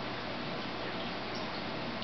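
Steady background hiss with a couple of faint clicks about a second and a half in: the hard veggie disks snapping as silver dollars bite them.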